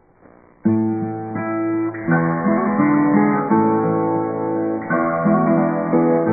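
Music: acoustic guitar that starts abruptly under a second in and plays on steadily with plucked and strummed notes.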